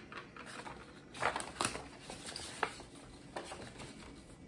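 Sheets of paper being handled and slid across a tabletop, with a few short rustles and scrapes, the loudest a little over a second in.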